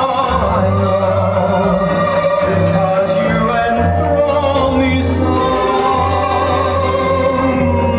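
A song: a singing voice holding long, slightly wavering notes over orchestral backing and a steady bass.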